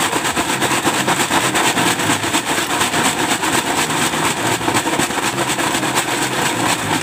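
Sea urchins rattling and crunching inside a plastic sack being shaken hard and fast, a dense rapid clatter; the shaking breaks off the urchins' spines so they can be handled as bait. It stops abruptly near the end.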